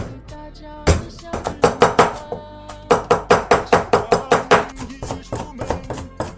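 Kitchen knife chopping rapidly on a cutting board, mincing garlic and small chillies: quick strokes about four to five a second, with a short pause partway through and lighter strokes near the end. Background music plays underneath.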